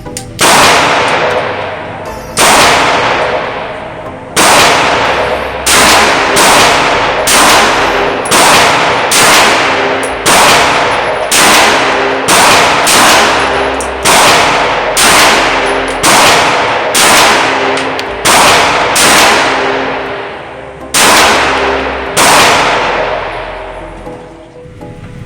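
Glock G25 pistol firing .380 ACP in a long string of single shots, about twenty in all. The first few come about two seconds apart, then they quicken to roughly one every half second to second. Each shot is followed by a long ringing tail.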